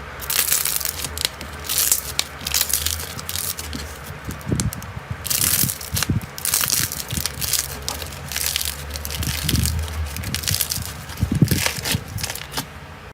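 Slime being squeezed and pressed by hand, giving dense crackling and crunching in repeated surges, typical of crunchy slime.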